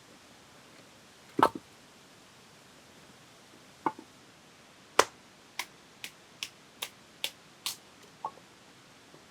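Sharp knocks: two single ones, then a quick run of about seven at two to three a second, and one more, softer.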